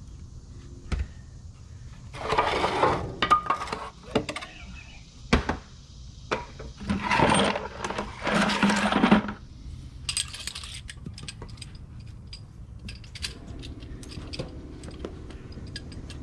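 Metal tools and parts being shifted about by hand: a few single knocks, two longer stretches of scraping and shuffling, then a string of small metallic clinks in the second half.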